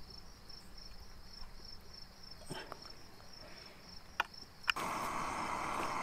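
An insect chirps in a steady, high, pulsing trill, with a few soft clicks as fingers pick fish meat off the bones in a metal pan. Near the end a sharp click is followed by a steady rushing hiss, which becomes the loudest sound.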